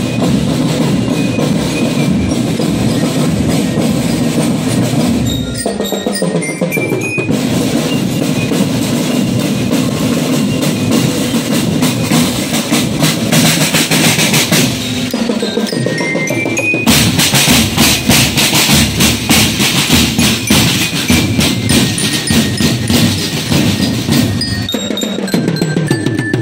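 Marching drum band playing in the street: snare and tenor drums beat a steady, dense cadence over a low drum, and the drumming grows louder about two-thirds of the way in. A bell lyre (marching glockenspiel) plays quick rising runs of notes three times over the drums.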